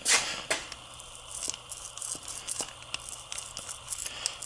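Plastic sheet crinkling and sticky, tearing-like handling noises with scattered light clicks, while silicone sealant is worked with a small foam roller. A sharp rustle comes at the very start and another about half a second in.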